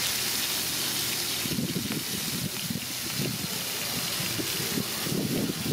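Shrimp sizzling in oil on a large flat pan, a steady hiss, while a metal spatula stirs and turns them.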